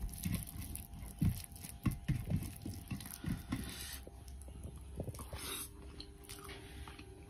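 Bare fingers mixing rice with mashed fried pumpkin on a metal plate: soft, irregular squishing pats and scrapes. A handful is then eaten, with chewing about five seconds in.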